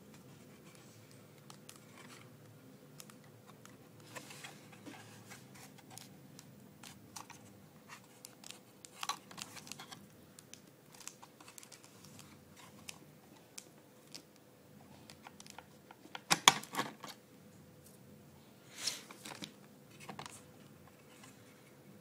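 A 2.5-inch laptop hard drive being handled against the metal drive bracket of a mini PC: scattered light clicks, taps and scrapes, with a louder cluster of clicks about three-quarters of the way through and another shortly after, over a faint steady hum.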